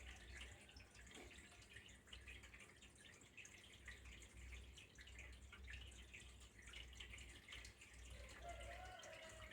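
Faint water dripping and trickling, a quick irregular patter of small drops.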